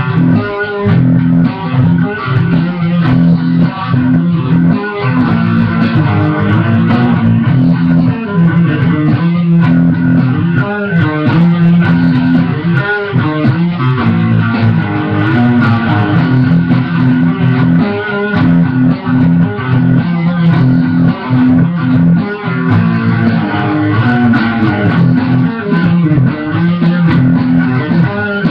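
Guitar played along with a recorded drum track: a repeating riff of low notes with a steady beat under it.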